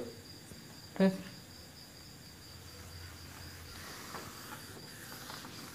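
Whiteboard duster rubbing across the board, a faint scratchy wiping from about three and a half seconds in, over a steady high-pitched tone. A short vocal sound about a second in is the loudest moment.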